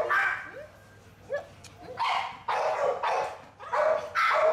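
Pit bull-type dog barking and crying in short, loud bursts, about five in all, with a quiet pause about a second in.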